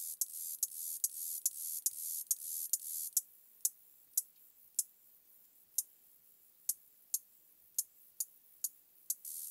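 A single beetle chirping: sharp, high-pitched clicks. For the first three seconds a hissy buzz fills the gaps between them. Then come single clicks about half a second to a second apart, and the buzz returns near the end.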